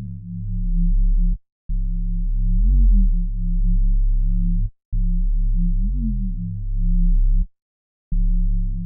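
Deep synthesized sub-bass line looping, all low end and no drums: a held bass note with a quick pitch swoop up and back down about every three seconds, cut by brief gaps of silence.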